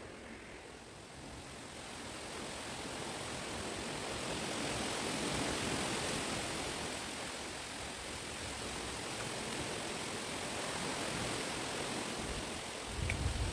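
Wind rushing through the leaves of chestnut trees, swelling over the first few seconds and then holding steady, with low buffeting of wind on the microphone near the end.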